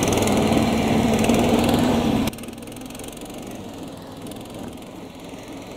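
Snowdog Sport B13 MER track sled's small gasoline engine running steadily as it drives, close and loud at first. About two seconds in the level drops abruptly, and the engine goes on fainter and more distant.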